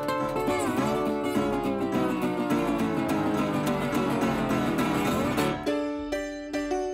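Background music; about five and a half seconds in it thins out to a few separate notes.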